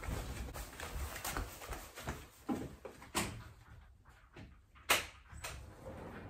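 A wooden-framed sliding glass door being handled, knocking and rattling in its frame, with several sharp knocks, the loudest about five seconds in.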